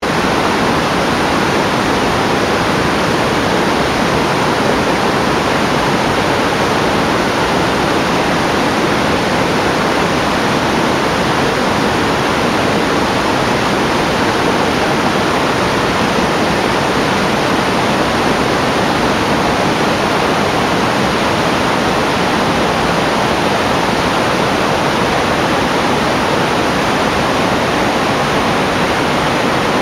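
Steady, loud rush of a stream's white water pouring down a rocky waterfall.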